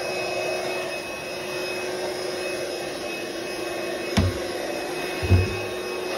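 Cordless stick vacuum cleaner running steadily over a hard kitchen floor, a constant hum with a held whine. Two dull thumps come about four and five seconds in.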